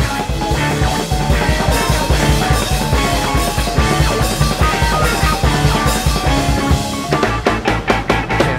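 Rock music with a driving drum-kit beat, bass drum and guitar, played by a band.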